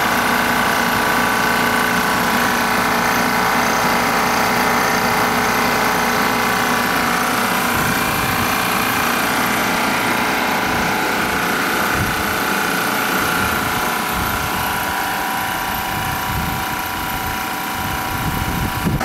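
Refrigerant recovery machine running steadily with a constant hum and whine, pumping refrigerant out of a window air-conditioner into the recovery tank. Irregular low rumbling joins in about halfway through.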